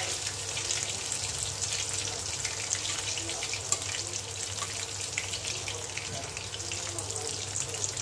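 Chicken pakoras deep-frying in hot oil in an aluminium kadhai: a steady sizzle full of fine crackling pops, with a brief knock of the metal spatula against the pan a little before the middle.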